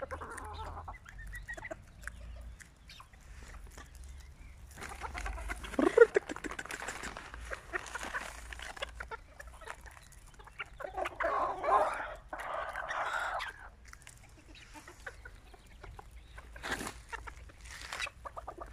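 Serama bantam chickens clucking around the feeding spot, with two louder stretches of calling about five and eleven seconds in, among short scattered clucks and clicks.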